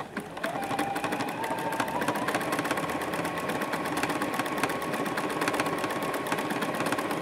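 Juki F600 computerised sewing machine stitching through quilted layers with wadding in between. Its motor whine rises over the first two seconds and then holds steady, over a fast run of needle strokes.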